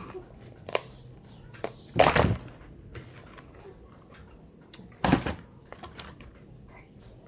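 Crab shell cracking and crunching while being eaten: a few short sharp cracks, then two louder crunches about two and five seconds in.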